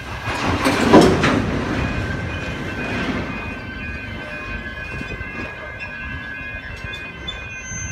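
Container freight train wagons rolling past, wheels clattering on the rails, with steady high tones over the rumble. The clatter swells loudest about a second in, then settles to a steady roll.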